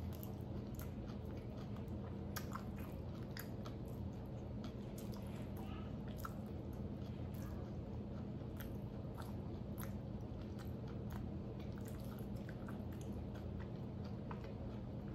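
A person chewing food close to the microphone: irregular small wet clicks and light crunches, over a steady low hum.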